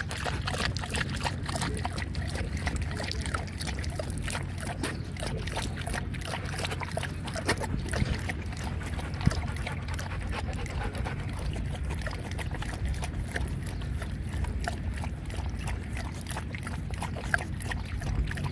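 Dog lapping and slurping water from a plastic bottle held to its mouth, with water spilling and dribbling onto the ground. It makes a quick, irregular run of wet clicks over a steady low background hum.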